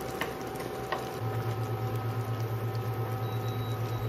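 Electric cooktop humming under a wok of simmering coconut milk on low heat. After two light clicks, a low pulsing hum cuts in about a second in, beating about three times a second, over a faint steady whine.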